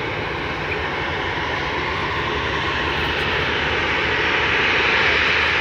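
An airliner's engines, a steady rushing noise with a low rumble that grows gradually louder.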